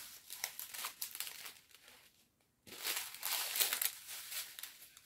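Small plastic bags of diamond-painting drills crinkling as they are handled and gathered up, with the crackling densest and loudest from about three seconds in.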